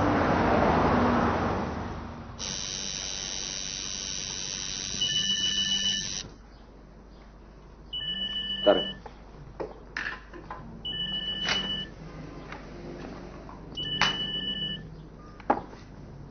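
A telephone ringing: short two-tone rings about a second long, repeating every three seconds, with a few sharp clicks between them. Before the rings there is a loud rushing noise for about two seconds, then a steady tone lasting a few seconds.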